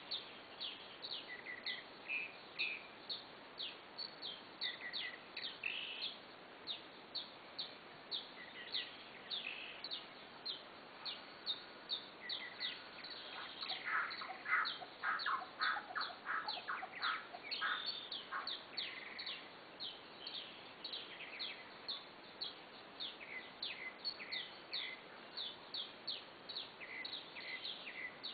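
An evening chorus of animal calls: many short, high chirps that slide downward, overlapping and repeating several times a second, with a dense run of rapid, lower-pitched calls from about halfway in for a few seconds.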